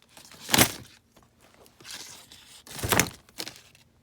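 Small toys being handled: two dull thunks about two seconds apart, the first about half a second in, with light rustling and a smaller knock between and after.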